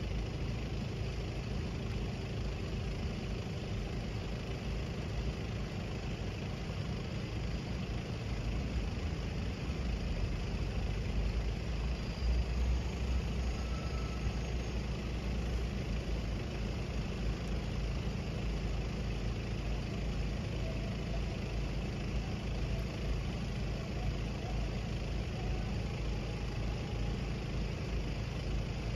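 Low, steady rumble of road vehicle engines idling, swelling louder for a few seconds about a third of the way in.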